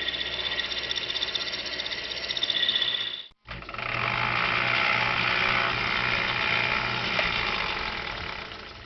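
Two machine sound effects: a machine running with a steady high whine, which cuts off about three seconds in; then, after a short gap, a milling machine running and fading out near the end.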